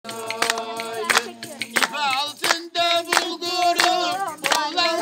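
Voices singing a folk tune to a steady beat of hand claps, about one clap every two-thirds of a second.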